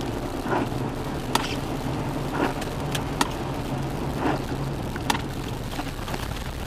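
Steady engine hum and tyre noise inside a car driving on a wet road. A sharp click comes about every two seconds, with a softer swish midway between each pair.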